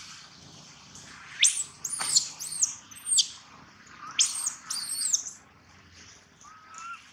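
Baby long-tailed macaque crying: a run of about six shrill squeals, each rising and falling in pitch, from about a second and a half in to five seconds in, followed by a softer, lower call near the end.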